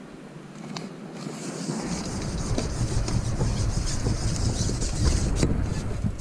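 Carbon fishing pole rubbing and scraping as it is handled, lifted and slid back out, with small clicks and a low rumble. It gets louder about two seconds in.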